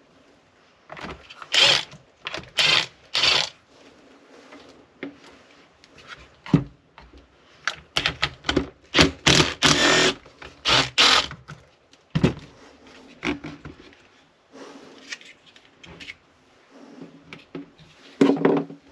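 Hand tools and parts being worked on a chainsaw during teardown: a series of short clicks, rattles and scrapes at irregular intervals, with a sharp knock about twelve seconds in.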